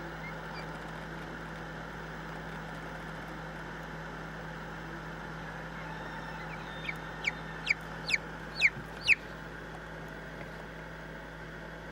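Chicken chicks inside pipped eggs peeping: a quick run of about seven short, high calls, each falling in pitch, from about seven to nine seconds in, over a steady background hum.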